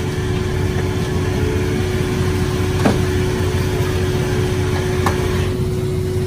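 Machinery running with a steady hum, holding one constant tone, with a sharp click about three seconds in and another near five seconds.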